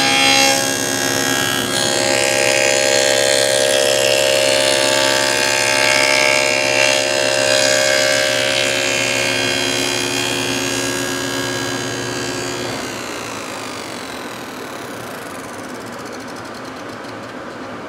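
Table saw running with a dado stack cutting a stopped rabbet in a board. About thirteen seconds in the saw is switched off, and the blades wind down with a falling whine.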